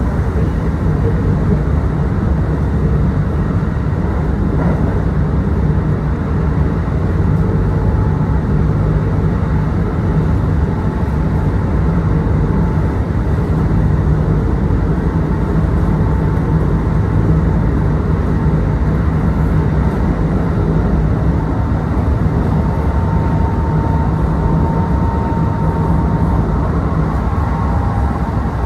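Kintetsu Osaka Line local train running between stations, heard inside the passenger car: a steady rumble of wheels on the rails, with a faint steady tone that comes and goes in the second half.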